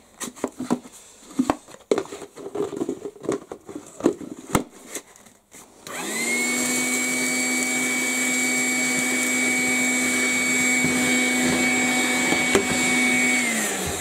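Clicks and knocks from handling a Makita DCL180 18V cordless handheld vacuum. About six seconds in it switches on and runs with a steady motor whine for about seven seconds, sucking up a pile of sawdust, then winds down just before the end.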